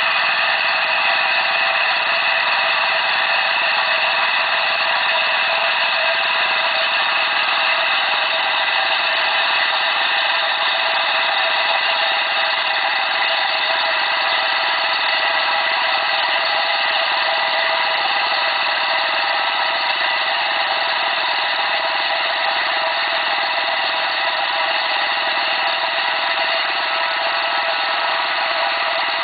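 Laterite-cutting machine running steadily: its power-tiller diesel engine under load and the belt-driven circular blade grinding a groove through laterite rock.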